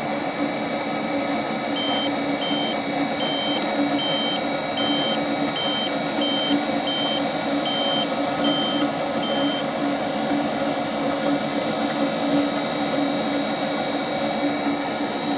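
Handheld combustible gas leak detector beeping about twice a second for several seconds before stopping, its alarm signalling gas picked up at the furnace gas valve. A steady furnace hum runs behind it.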